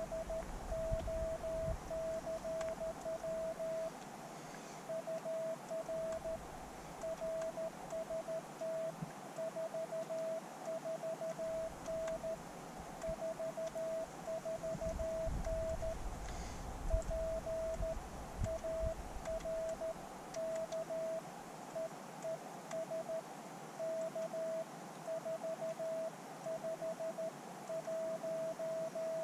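Morse code (CW) from a ham radio transceiver: a single steady beep tone keyed on and off in quick dots and dashes, with short gaps between groups, over faint hiss.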